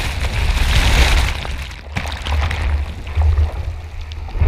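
Broken surf whitewater rushing and fizzing around a camera held at the water surface, over a heavy low rumble, loudest about a second in and then easing off, with a few sharp crackles of foam and splashes.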